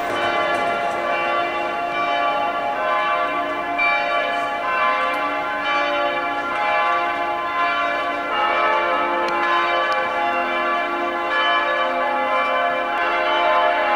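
A peal of several church bells ringing continuously, their strokes overlapping and each tone ringing on.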